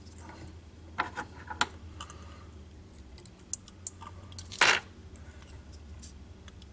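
Scattered light clicks and ticks of hands working thread and tools at a fly-tying vise, with a longer scratchy sound about two-thirds of the way through, over a faint low hum.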